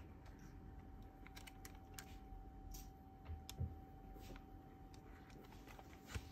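Faint scattered clicks and taps of gloved hands and small tools handling an opened electronic unit's case and circuit board, with two soft thumps, about halfway and near the end, over a faint steady hum.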